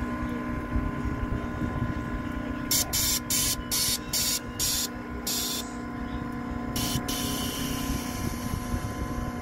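Harley-Davidson touring bagger's V-twin idling with an uneven low rumble. In the middle comes a quick series of about seven short bursts of hissing, and one more a little later.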